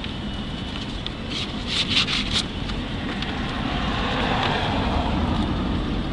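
Street traffic rumble with a little wind on the microphone, swelling about four seconds in as a vehicle passes. Short crisp rustles of paper documents being handled come near two seconds in.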